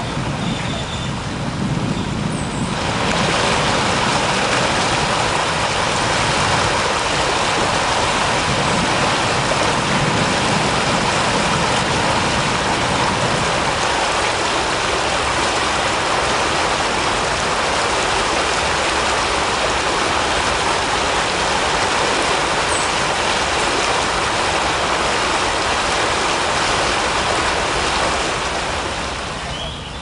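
Creek water rushing steadily, a constant even rush that swells in a couple of seconds in and fades near the end.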